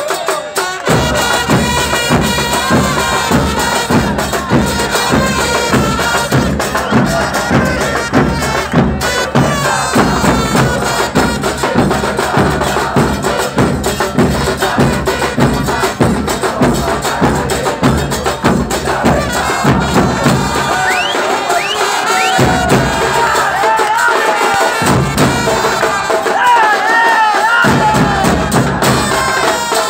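A football supporters' band plays: large bass drums beat a fast, steady rhythm under sustained horn-like tones, with the crowd singing along. Near the end the drums drop out briefly a few times while the singing carries on.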